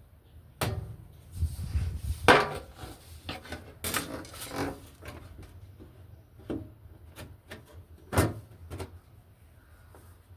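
Irregular knocks and clatters of hard objects being handled, the loudest a little over two seconds in and again about eight seconds in, with quieter taps in between.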